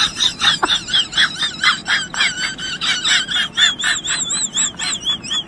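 An animal chirping rapidly: a run of short, high calls, several a second, that turn into wavering, whistle-like notes in the second half.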